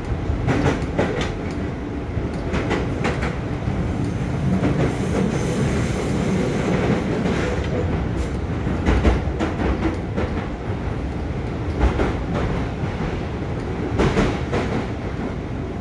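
JR East 205 series 1100 subseries electric train running, heard from inside a motor car: a steady rumble of wheels on rail, with sharp clicks from the rail joints at irregular intervals.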